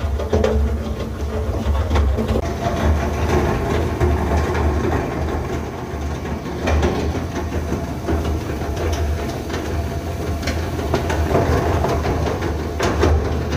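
SUPU SPC600 single-shaft shredder running under load, its rotor chewing waste paper into small pieces. It makes a steady low hum with irregular crunching clicks throughout.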